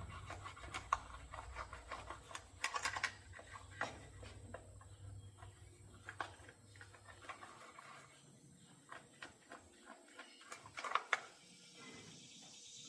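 Scattered light clicks, taps and scrapes of hand work on a small Stihl chainsaw's body as dirt is cleaned out, with a few sharper knocks about a second in, around three seconds in, and near the end.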